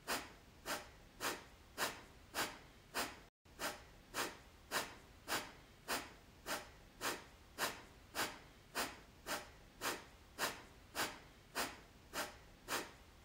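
Kapalabhati (breath of fire) breathing: short, forceful exhalations pushed out through the nose in a steady rhythm of nearly two a second, each inhalation quiet in between.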